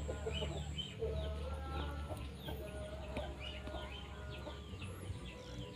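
Chickens clucking, with many quick, high falling chirps and a low steady hum underneath.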